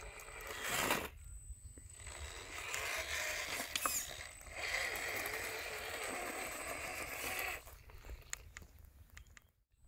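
Traxxas TRX-4 RC crawler's electric motor and geared drivetrain whining as it crawls over rock and gravel, the pitch wavering with the throttle, and the whine falls away near the end. A sharp click or knock about a second in.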